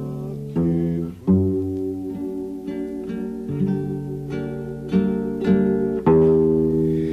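Instrumental music: an acoustic guitar strumming chords, each struck and left to ring, a new chord every second or so.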